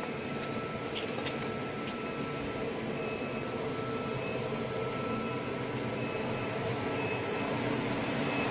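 Automatic CNC wood lathe machining center running: a steady machine hum with a thin high whine that comes and goes, growing slightly louder near the end.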